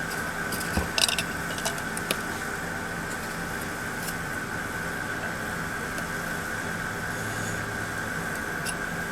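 A few short scrapes and clicks in the first couple of seconds, from the cut end of a PVC pipe being cleaned up by hand, over a steady mechanical hum with a constant high whine.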